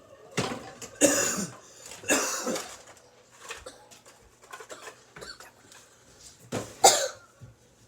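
A person coughing: a few harsh coughs in the first three seconds, then two more close together near the end.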